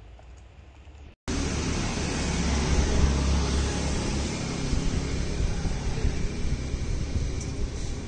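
About a second of quiet room tone, then a sudden cut to loud, steady outdoor rushing noise with a deep, fluttering rumble underneath.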